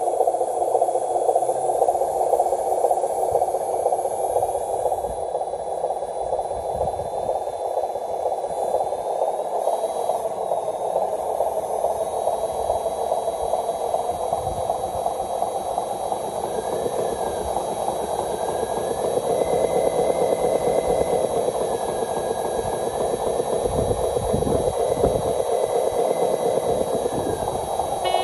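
Radio-controlled truck running over rough dirt: a steady mechanical drone from its drive, growing somewhat louder about two-thirds of the way through.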